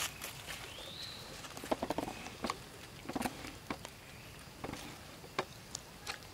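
Long-tailed macaques moving about on gravel: scattered short taps and scuffs, a brief rising squeak about a second in, and a few short calls around two and three seconds in.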